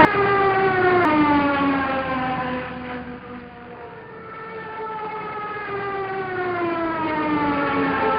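Small electric motors and propellers of a home-made foam RC plane, giving a steady whine. The pitch slides slowly down, jumps up about a second in, then slides down again, and the whine fades for a moment midway before growing louder.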